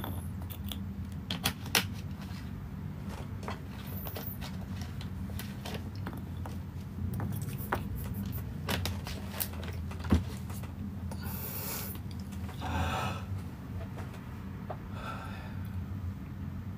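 Scattered small clicks and crackles of a plastic water bottle being handled, over a low steady hum, with a couple of short breathy rushes about twelve seconds in.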